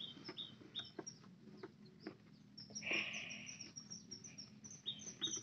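Small birds chirping in a quick, repeated pattern, with a brief louder call about three seconds in. Faint clicks of a key being worked in a motorcycle ignition lock come through underneath.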